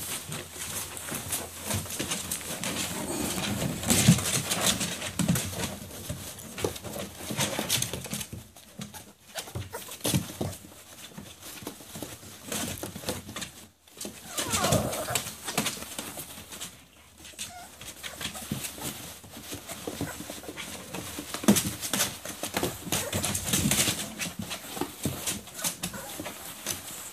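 Five-week-old bully puppies scrambling through shredded paper in a plastic kiddie pool, a steady rustling and crackling of paper with scratching and pawing. A short puppy whimper is heard about halfway through.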